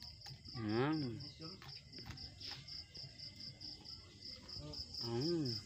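An insect chirps steadily in a high, even pulse of about five beats a second. A man eating fried chicken twice gives a short rising-and-falling 'mmm' hum with his mouth full, about a second in and again near the end.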